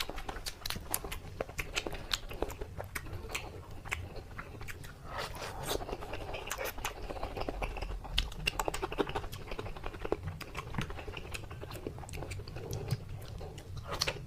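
Close-miked chewing of crispy food: dense, irregular crunching crackles from bite after bite.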